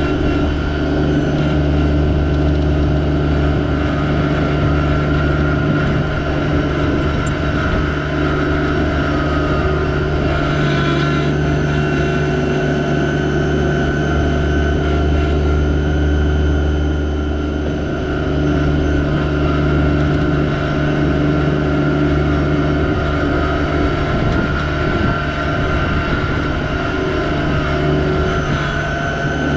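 Yanmar SA324 compact tractor's diesel engine running steadily at a constant speed, with a slight easing in level a couple of times.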